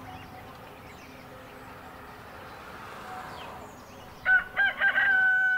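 Rooster crowing about four seconds in: a few short clipped notes, then one long held note, louder than everything else. Before it there is only a faint outdoor hush with a few thin bird chirps.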